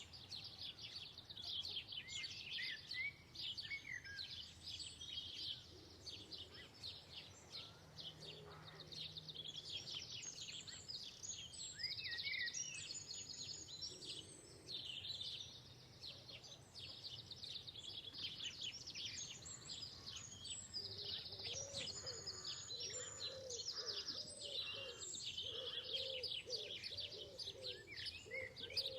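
A flock of small birds chirping steadily, many high calls overlapping, with a lower repeated call joining in about two-thirds of the way through.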